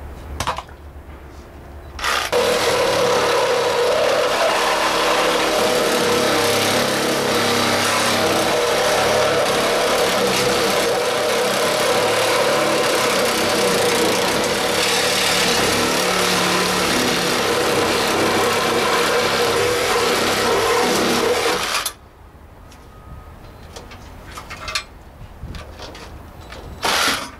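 A handheld cordless power tool runs continuously on metal for about twenty seconds, starting about two seconds in and stopping abruptly. A few sharp knocks follow near the end.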